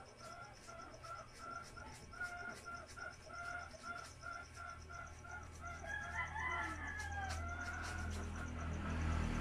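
A rooster crows once, about six seconds in, over a steady background of quick pulsing chirps repeating about four times a second. A low rumble builds near the end.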